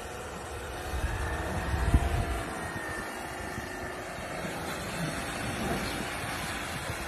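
Toyota SUV driving hard through deep snow past the camera, its engine running under load with a whine. The loudest surge comes about two seconds in, with a deep rumble.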